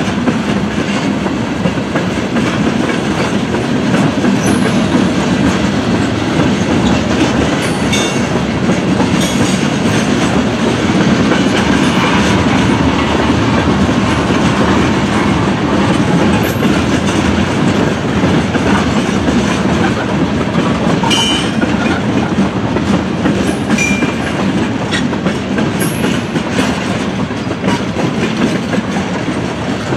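Freight train of tank cars rolling past close by: a steady rumble of wheels with clickety-clack over the rail joints, and a few brief high-pitched squeals or clanks.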